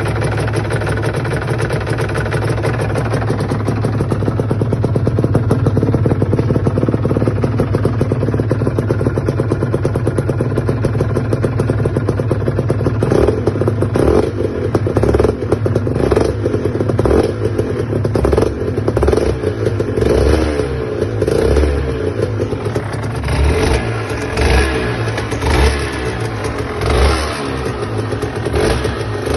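Aprilia RS 125 single-cylinder two-stroke engine running, steady for the first dozen seconds or so, then rising and falling unevenly from about halfway on. The noise is one the owner takes for a sign of a fault.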